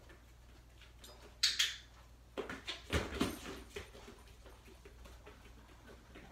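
A dog moving about on a rubber-matted floor: a brief high sound about a second and a half in, then a cluster of thumps and scuffles as it drops down to lie on the floor.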